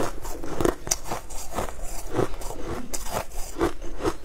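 Shaved ice crunching: a run of crisp, irregular crunches, two or three a second.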